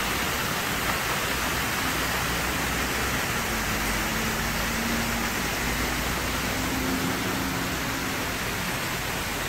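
Steady rushing of a pumped artificial rock waterfall mixed with city street traffic, with a faint engine hum for a few seconds in the middle.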